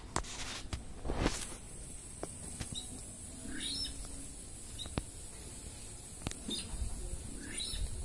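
Birds calling over a rice field: a few short, falling chirps in the middle and near the end, over a steady high hiss. Sharp clicks and a louder rustle about a second in come from handling close to the microphone.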